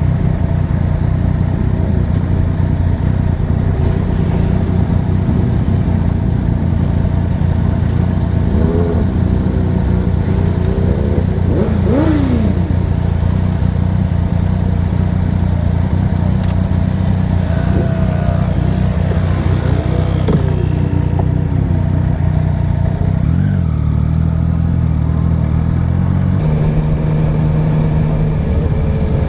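Yamaha N-Max 125 scooter's single-cylinder engine running steadily among a group of motorcycles, with other bikes nearby revving up and down in pitch several times. About 23 seconds in, the engine note changes and settles as the group rides off.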